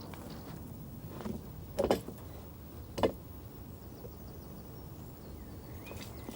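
A few separate knocks: a faint one about a second in, a quick double knock near two seconds and a single one about three seconds in, over a steady low background rumble.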